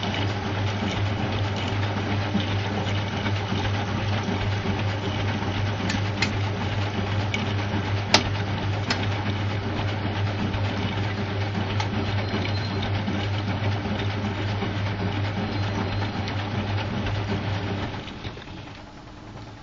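Whirlpool washing machine running in its third rinse, a steady mechanical hum with a strong low drone. There is a single sharp click about eight seconds in, and the machine drops off sharply near the end.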